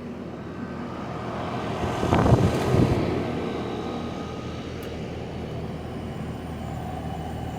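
Heat pump running with a steady fan whoosh, with a louder rushing swell about two seconds in that settles back.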